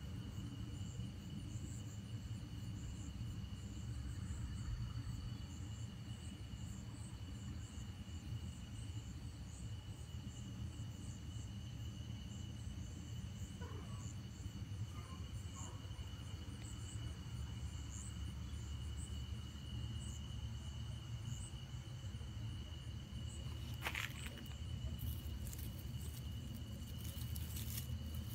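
Night insects calling steadily: a constant high trill with a faster pulsing chirp above it, over a low steady rumble. Near the end come a single sharp click and some brief rustling.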